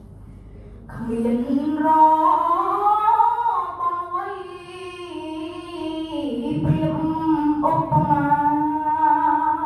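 A young student's voice chanting a Khmer poem in the sung, drawn-out recitation style, holding long notes that glide slowly up and down, with a short break about six and a half seconds in.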